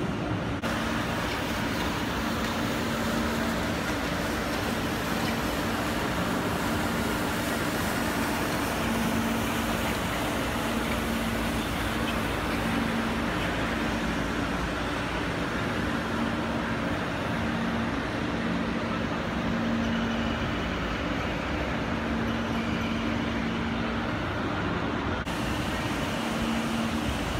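Steady ambient rumble and hiss of a large railway station hall, with a low hum that fades in and out.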